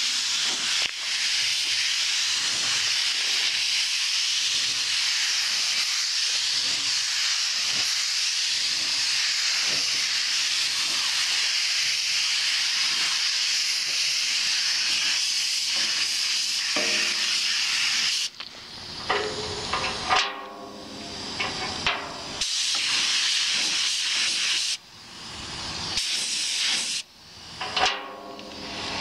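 Gravity-feed paint spray gun hissing steadily as compressed air atomises the light gray base coat. In the last ten seconds the hiss stops and starts several times as the trigger is released and pulled again.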